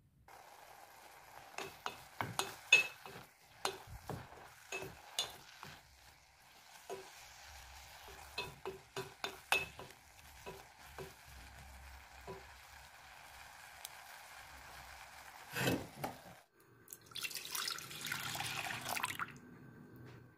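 Wooden spoon stirring diced apples in a stainless steel pot, knocking against the pot many times over a steady hiss of cooking. Near the end comes a short rush of liquid being poured, which fits milk going into a pan.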